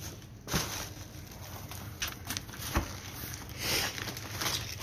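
Cardboard box and packaging being handled as a new intercooler is unpacked: scattered light knocks and a brief rustle of cardboard and bubble-wrap bags. A faint steady low hum runs underneath.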